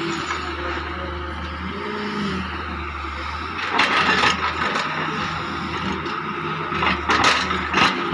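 Doosan DX140 wheeled excavator's diesel engine and hydraulics working under load as the bucket digs a trench, the engine note shifting as the arm moves. The bucket scrapes through soil and stones about four seconds in and again a few times near the end.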